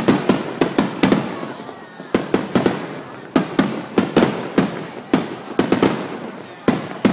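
Aerial firework shells bursting in quick succession: sharp bangs several a second, coming in volleys with brief lulls between them.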